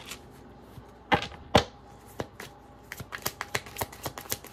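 Tarot deck being shuffled by hand: a quick run of light card clicks, about five a second, starting about three seconds in. Two sharp taps come just after a second in.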